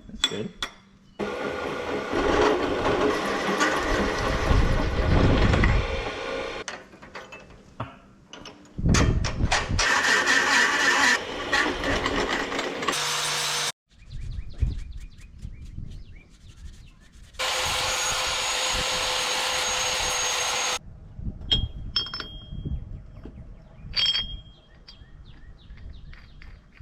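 Power drill boring 7/16-inch holes through a steel hole saw to make a puller: three runs of a few seconds each with the motor whining under load, then clicks and knocks of handling the work.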